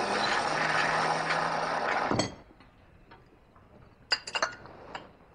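Coffee-making sounds: a steady hiss for about two seconds that cuts off with a click, then a few light clinks of cups and metal near the end.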